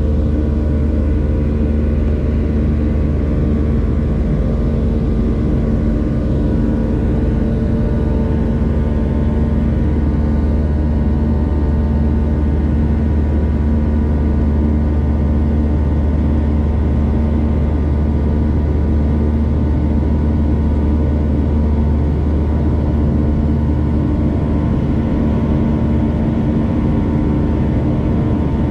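Jet airliner cabin noise in flight: the steady drone of the wing-mounted jet engines and rushing air, with several steady low hums running through it.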